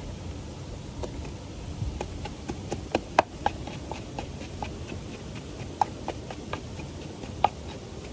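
Scattered sharp clicks and taps of someone eating, a few louder snaps standing out about three seconds in, near six seconds and near the end, over a steady low rumble.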